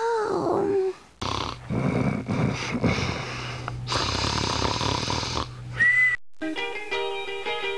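A child's high voice gliding up and down, then a rough noisy stretch. After a short break, music comes in about six seconds in.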